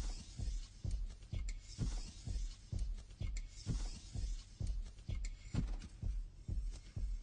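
Electronic music backing track stripped down to its beat: a steady kick drum about twice a second, with crisp hi-hat ticks and swelling cymbal hiss.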